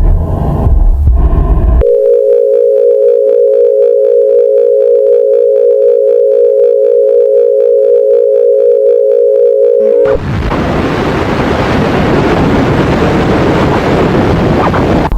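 Low rumbling noise, then a loud, steady electronic tone that starts abruptly about two seconds in and holds for about eight seconds. It cuts off suddenly into loud hissing static.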